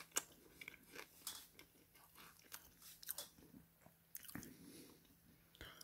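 Close-up eating sounds: a fork picking at oven chips and spaghetti on a plate and chewing, heard as scattered soft clicks and crunches.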